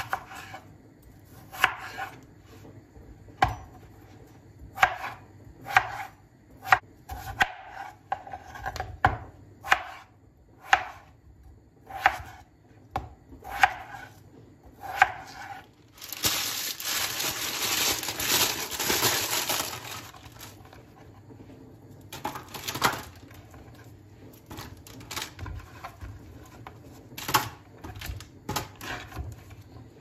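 Chef's knife cutting peeled potatoes into wedges on a wooden cutting board, the blade knocking the board about once a second. About halfway through, baking paper is laid into a steel roasting tray and rustles for about four seconds, followed by scattered soft knocks as the wedges are handled.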